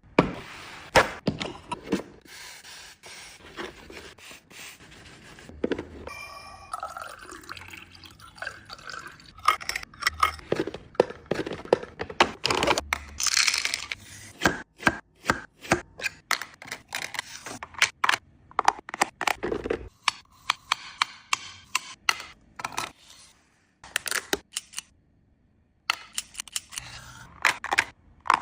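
Restock sounds: packaged snacks and drink containers being handled and set down, with many quick clicks, knocks and clatters, and some sloshing or pouring of liquid.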